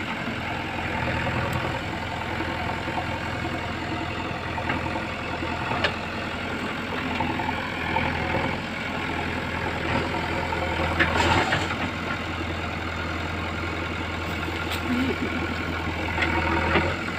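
JCB backhoe loader's diesel engine running steadily at low revs, with a few short sharp knocks.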